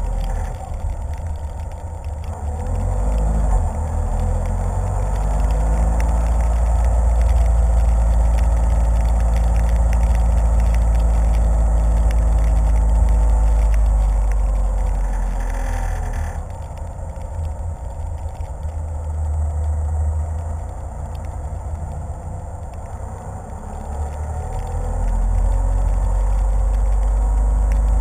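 A car driving, picked up by a camera mounted on its hood: a heavy low rumble with the engine's hum over it. The engine note rises for several seconds, then the sound eases a little past the middle and builds again near the end.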